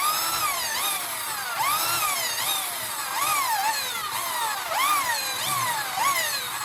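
Electric power tool's motor whining, its pitch rising and falling about once a second as the tool is loaded and eased off.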